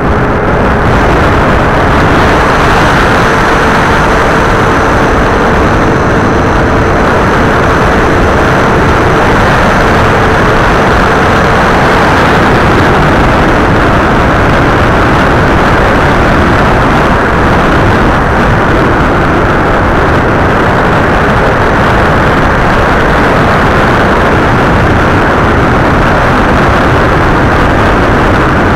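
FPV model aircraft's motor and propeller running at flying speed, heard through its onboard camera as a loud, steady rush of propeller and wind noise. A faint steady whine under it fades out about twelve seconds in.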